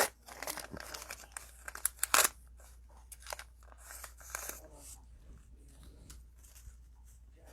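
Cellophane wrapper of a trading-card cello pack being torn open and crinkled. Sharp crackles come in the first two seconds, loudest at the very start and about two seconds in, followed by softer crinkling.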